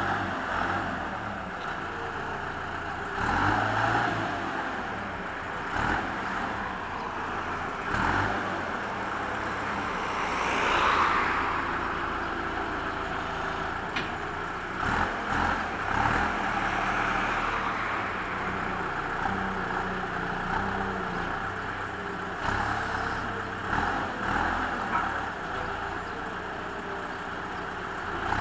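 Motor vehicle engine running steadily at idle, with a louder swell about ten seconds in and a few shorter surges.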